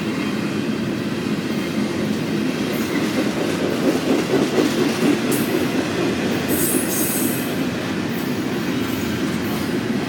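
Double-stack container freight train rolling past, its well cars making a steady rumble of steel wheels on rail, with a few brief high hissing or squealing patches near the middle.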